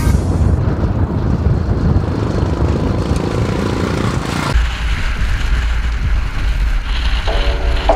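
A motorcycle under way: engine rumble mixed with wind noise. About halfway through it changes abruptly to a deeper, steadier low rumble, the onboard sound of a Kawasaki KLR650's single-cylinder engine while riding. Music comes in near the end.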